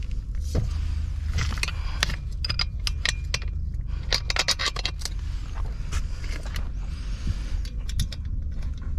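Metal clicking and jangling as a transom launching-wheel bracket and its locking pin are handled and fitted onto an inflatable boat's transom, with clusters of clicks about a second and a half in and again about four seconds in, over a steady low rumble.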